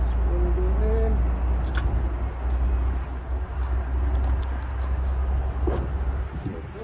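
Steady low rumble under a few light clicks and taps as hands work the radiator and condenser bracket into place. A short wavering hum comes about a second in.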